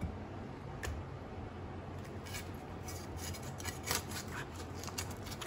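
A kitchen knife scraping and cutting a raw fish: short, irregular scrapes and clicks, starting about two seconds in and coming more often toward the end.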